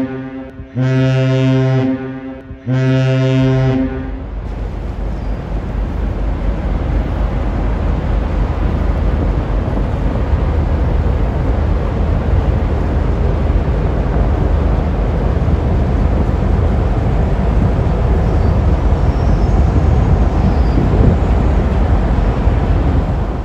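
A lake freighter's deep horn sounding in short blasts: the tail of one, then two more, the last ending about four seconds in. After that, a steady low rumble with wind on the microphone.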